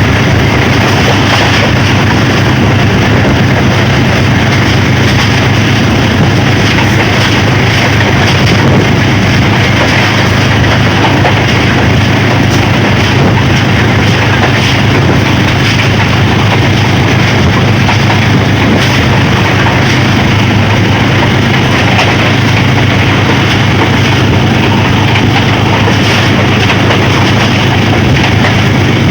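Diesel locomotive running at speed, a loud, steady, unbroken engine and running noise with a strong low hum.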